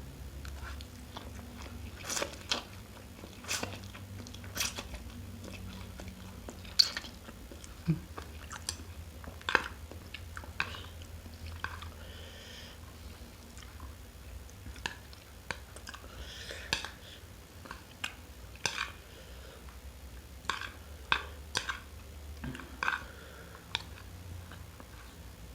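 Close-miked eating sounds: a person chewing and biting, with irregular sharp mouth smacks and clicks, roughly one every second or so.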